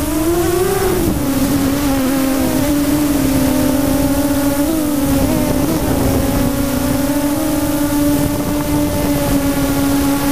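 Electric motor and propeller of an FPV radio-controlled model aircraft, running steadily in flight, heard up close from the onboard camera. Its buzz holds one pitch, rising briefly about a second in before settling back, with small dips in pitch around the middle.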